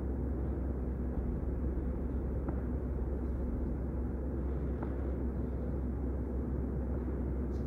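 Steady low room rumble and hum with no music, and a couple of faint soft taps.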